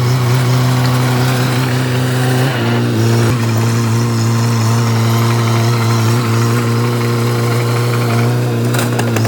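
Bulldozer's diesel engine running steadily under load, its pitch shifting slightly about two and a half seconds in. A quick run of sharp clicks comes near the end.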